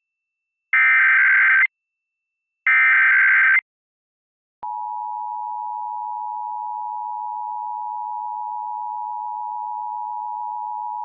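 Emergency Alert System Required Monthly Test: the last two of the three SAME header data tones, each about a second long and a second apart. After a second's gap comes the EAS two-tone attention signal (853 and 960 Hz), held steady for about six and a half seconds.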